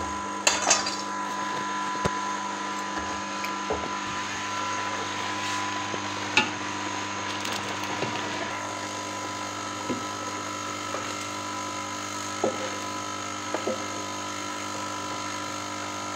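Occasional knocks and scrapes of a spoon against a metal cooking pot as boiled rice is added to the milk, over a steady electric hum.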